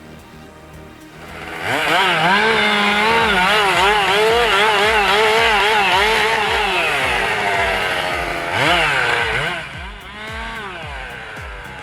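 Chainsaw engine running at high revs as it cuts, its high whine wavering and dipping as the chain loads up in the wood. It starts about a second and a half in and drops off around ten seconds, leaving falling swoops of revs.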